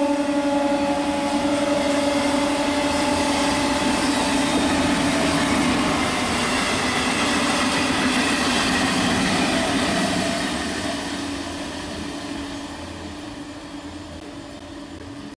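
Indian Railways EMU local train passing at speed: a steady, long horn blast for the first five seconds or so, over the running noise of the wheels and coaches. The noise then fades away over the last few seconds as the train recedes.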